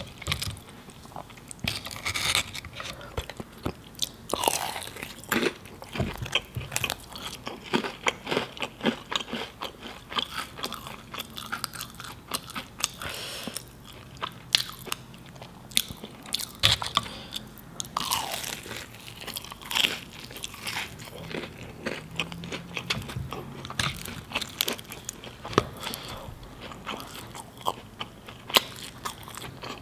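Close-miked biting and chewing of a samosa: its fried pastry shell crunches in many short, irregular crackles.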